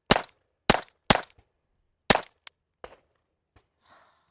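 Glock 44 .22LR pistol firing four sharp shots at an uneven pace, the last a second after the third, followed by a couple of much fainter knocks.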